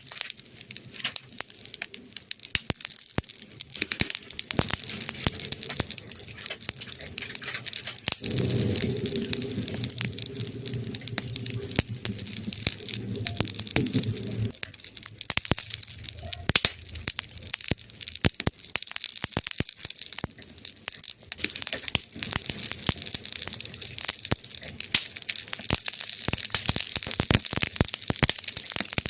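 Campfire crackling, with frequent sharp pops and snaps over a steady hiss. A low rumble joins for about six seconds in the middle.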